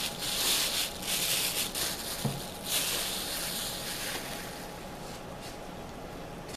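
Crumpled paper rustling and crinkling as it is handled and set down, in several bursts over the first three seconds, with a light knock a little past two seconds, then fading to a faint hiss.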